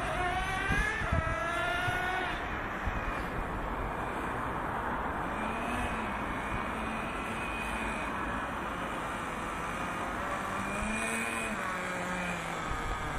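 Traxxas T-Maxx RC monster truck's VX .18 nitro engine running at a high, buzzing pitch, revving up hard in the first couple of seconds, then rising and falling in pitch as the truck is driven around.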